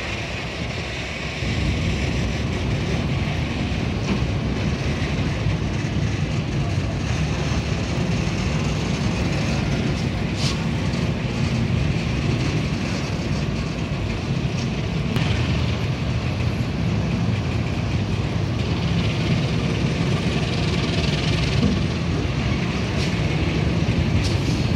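Clinker freight wagons being shunted, rolling slowly past with a steady low rumble of wheels on rail that sets in about a second and a half in, with a few sharp clicks.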